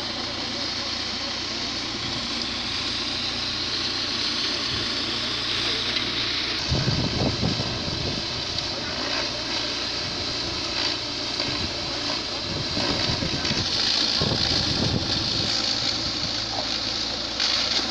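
Hammer mill grinding dry maize stalks into feed: a steady rushing whir of chopped stalks, with a machine engine running steadily underneath.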